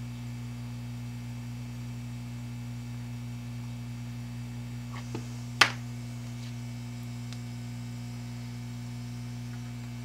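Steady electrical mains hum, with a few faint clicks and one sharp tap about halfway through.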